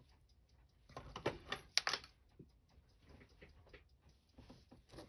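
Light clicks and taps of small metal watchmaking tools against watch parts as the dial is worked off the movement, a quick cluster about a second in with the sharpest click just before two seconds, then a few scattered faint ticks.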